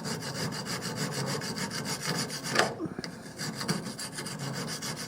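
Hand file rasping back and forth over the welded joint of a steel bandsaw blade, dressing the weld flush: quick, even strokes, with a short pause about halfway through.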